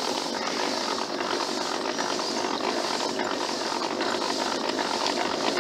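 Pedal-powered kayak's drive running as it is pedalled: a steady whirring, rushing noise.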